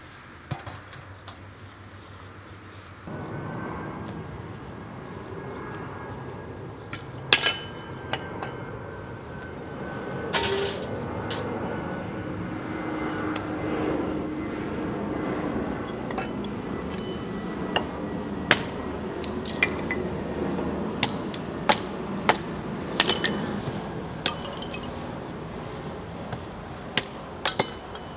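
Sharp knocks and metallic clinks of a hatchet splitting wood into kindling on concrete, scattered at first and coming thicker in the second half. Underneath is a steady background noise that gets louder about three seconds in.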